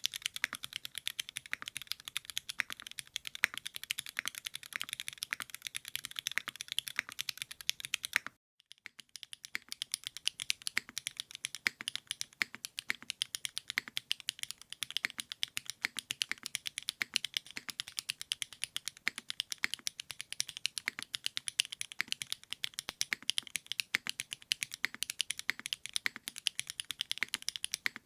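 Typing on a Singakbd Rubrehaku custom mechanical keyboard: a quick, steady run of keystroke clacks. It breaks off briefly about a third of the way in, then starts again.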